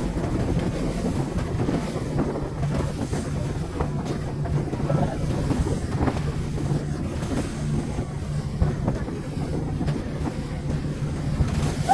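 Boat engine running steadily with a low hum, with wind buffeting the microphone.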